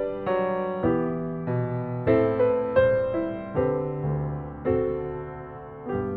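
Background music: slow, gentle solo piano, single notes and chords struck about once or twice a second and left to ring and fade.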